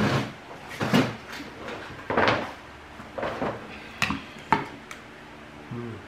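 Utensils knocking and scraping against bowls and dishes during a meal of sujebi soup: a series of short clatters and clinks about a second apart.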